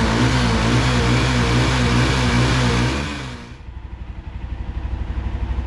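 A motorbike engine runs loud with a wavering pitch, then about three and a half seconds in drops back to a rapid, pulsing idle.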